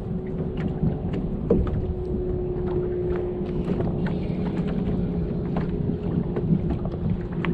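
A boat's motor running steadily, a constant hum with a held tone, with small clicks and taps throughout.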